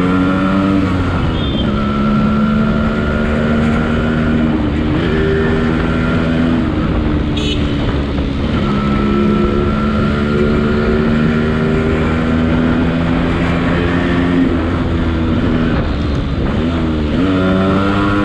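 Yamaha RX135's two-stroke single-cylinder engine running as the motorcycle is ridden at speed, held at steady revs and dropping then climbing in pitch at each of several gear changes. Wind rumbles steadily on the microphone.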